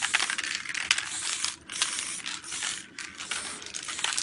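Aerosol spray paint can hissing in bursts as paint is sprayed, with short breaks about one and a half and three seconds in.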